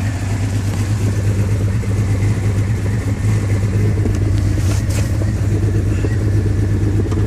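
2000 Jeep Cherokee XJ engine idling roughly with a steady low drone. The owner says it is misfiring and, having already replaced the spark plugs, thinks the ignition coils need replacing.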